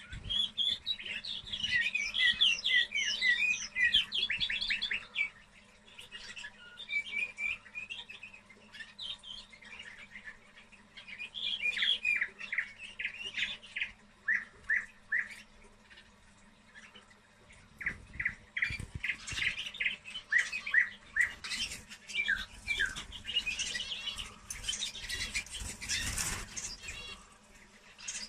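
Young canary, about two months old, singing its early song: quick runs of chirps and twitters broken by short pauses. Scattered knocks and rustles join in during the second half.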